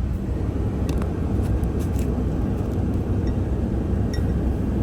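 Road noise inside a moving car: a steady low rumble of engine and tyres, with a few faint light ticks or rattles.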